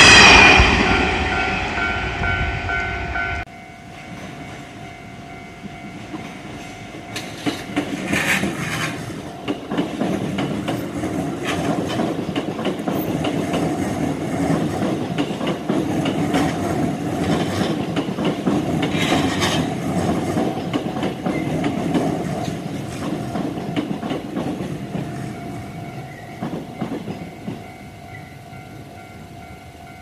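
A train passes close by and cuts off abruptly a few seconds in. Then a Japanese level-crossing warning bell rings steadily, its 'kan-kan' going on throughout. From about 7 s a 20 series electric train rumbles and clacks over the crossing, then fades away over the last few seconds while the bell keeps ringing.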